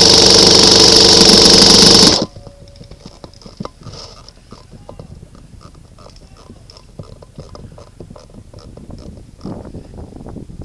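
Airsoft rifle firing a sustained full-auto burst of about two seconds, loud and close, laying down covering fire; faint scattered clicks follow.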